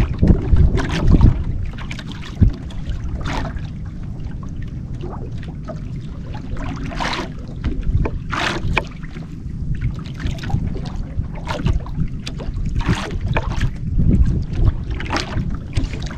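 Wind rumbling on the microphone and water lapping against a small drifting outrigger boat, with short sharp splashes and slaps every second or two.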